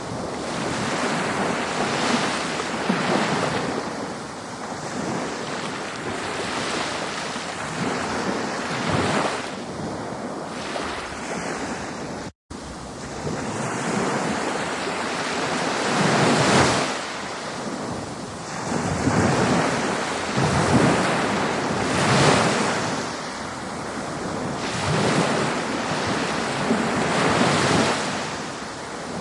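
Ocean surf washing continuously, swelling and easing every two or three seconds as waves break, with some wind on the microphone. The sound cuts out for an instant about twelve seconds in.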